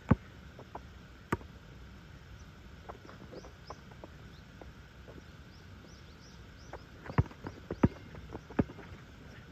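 Basketball bouncing hard on an asphalt outdoor court: one bounce at the start and another about a second later, then a quick run of bounces about seven to nine seconds in. Shoe scuffs sound in between, and small birds chirp faintly.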